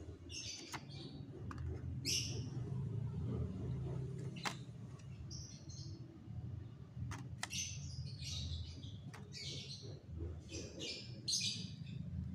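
Small birds chirping in short bursts of high calls, thickest in the second half, with a few sharp clicks over a steady low background hum.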